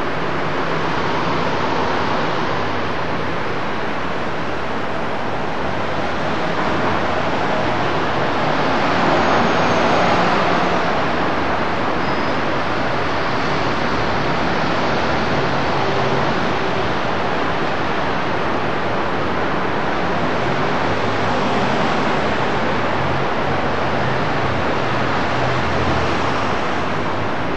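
Steady city street traffic noise, swelling a little about ten seconds in.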